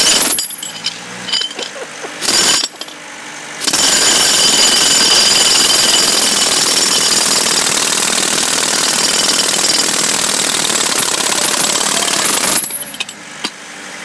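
60-pound pneumatic jackhammer breaking concrete, fed by an air hose. Two short bursts, then a long steady run of about nine seconds that stops near the end.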